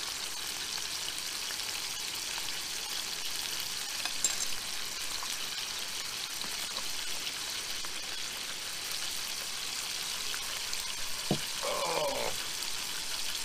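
Bacon sizzling steadily in a frying pan on a camping gas stove.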